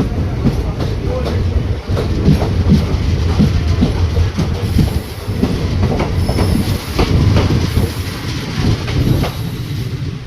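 A train running through with a loud low rumble and the repeated click-clack of its wheels over rail joints, with faint high wheel squeal in the second half.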